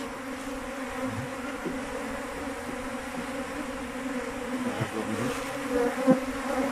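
Honey bees buzzing in a steady hum as a mass of them swarms onto a gloved hand, drawn to their caged queen.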